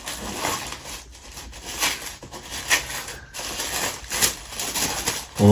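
Rustling, crinkling and light tapping of packaging being handled: a parcel's box, wrapping and packaged treats, in irregular short crackles.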